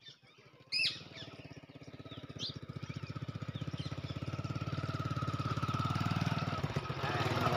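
Small motorcycle engine running with a steady low putter, growing louder as the bike comes closer along a dirt track, from about a second in.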